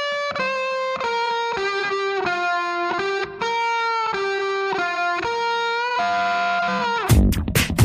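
Background music: a melodic lead line of held notes, changing about every half second, with a steady beat coming in near the end.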